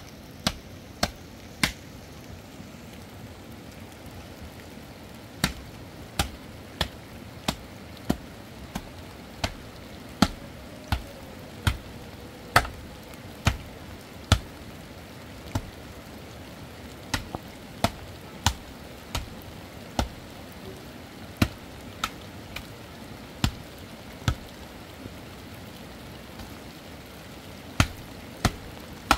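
Repeated sharp chopping strikes, about one every two-thirds of a second in runs with pauses, over a steady background hiss.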